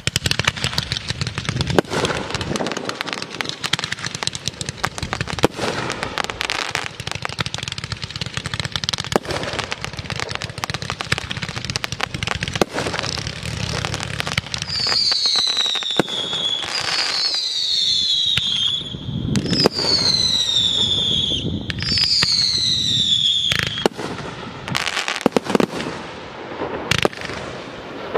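Fireworks display: a dense run of bangs and crackling, with four falling whistles in the middle, one after another, from whistling shells.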